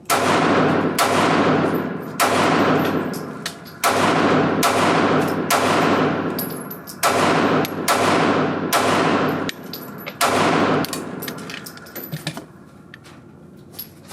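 A string of about ten shots from a Springfield Hellcat pistol, roughly a second apart, each with a ringing tail, followed by a few faint clicks.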